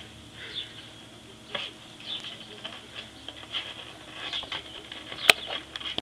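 Light scratching and tapping of a kitten's claws and paws shifting on a cardboard pizza box, in scattered small bursts, with one sharp click about five seconds in.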